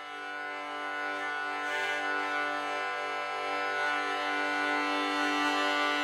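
Instrumental opening of a gospel song: sustained, held chords with no singing, swelling gradually in loudness.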